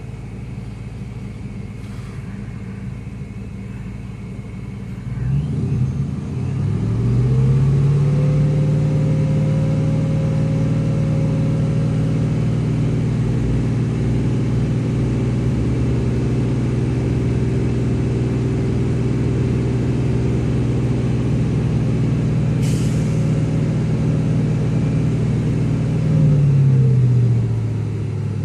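Car engine idling, then revved up about five seconds in and held at a steady raised speed for about twenty seconds before dropping back toward idle near the end. A single sharp click about twenty-three seconds in.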